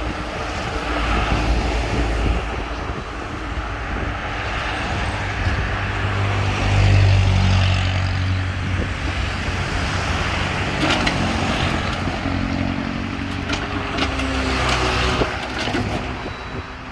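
Backhoe loader's diesel engine running under load, louder about seven seconds in, with a few sharp knocks in the second half.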